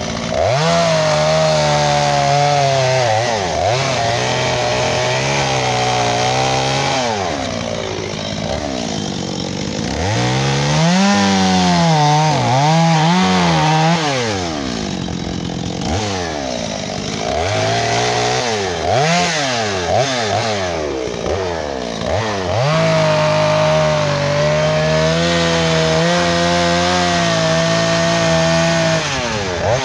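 Gas chainsaw cutting into a log, its engine held at steady high revs through the cuts and dropping off and revving back up several times in between, most often in the middle, before a long steady cut near the end.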